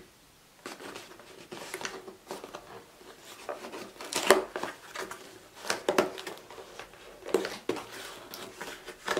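Hands handling a corrugated cardboard mailer box, fingers scraping and picking at the tape over its lid tab: irregular rustles, scrapes and small taps, with a few louder knocks about four and six seconds in.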